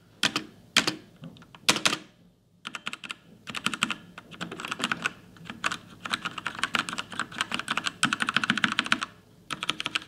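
Keys being typed on a mechanical keyboard with Outemu red (linear) switches, giving a full, solid sound. A few short bursts of keystrokes come first, then about six seconds of fast, continuous typing, then a short pause before more keystrokes near the end.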